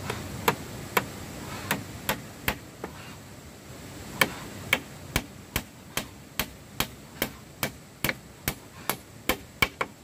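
A hand tool striking wood again and again: about twenty sharp blows, irregular at first, then steady at roughly two to three a second from about four seconds in.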